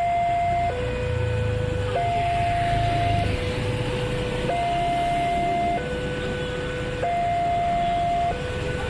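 Railway level-crossing warning alarm from the mast loudspeaker: an electronic two-tone signal alternating between a higher and a lower tone, each held about a second and a quarter, sounding while the crossing is closed for a train. A low rumble swells under it from about one to three seconds in.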